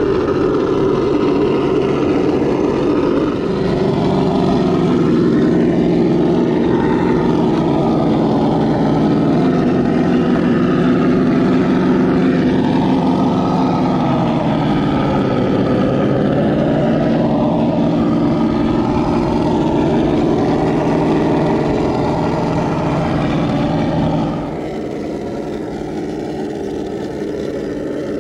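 Simulated engine sound from an onboard sound module on a Traxxas TRX6 Mercedes G63 6x6 RC crawler, running steadily with small rises and falls in pitch as the throttle changes. It becomes quieter about 24 seconds in.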